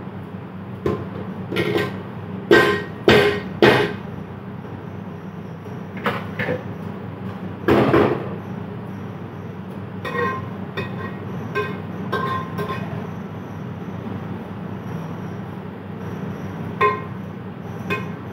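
Metal colander knocked several times against the rim of an aluminium cooking pot as parboiled rice is tipped out, the knocks ringing. Later comes lighter clinking and scraping of a metal spoon on the pot as the rice is spread, over a steady low hum.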